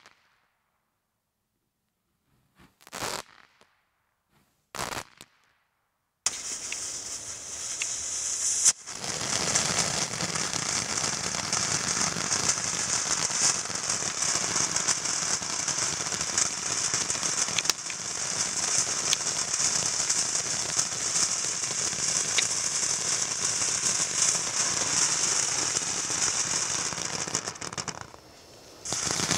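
Two sharp bangs from a firework a few seconds in. Then a White Dragon ground fountain firework starts and sprays sparks with a steady high hiss and crackle for about twenty seconds, dying down near the end.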